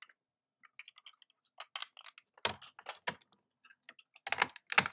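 PJ Masks plastic toy figures and a toy car being handled: a scatter of small clicks and knocks, with heavier knocks about two and a half seconds in and again near the end.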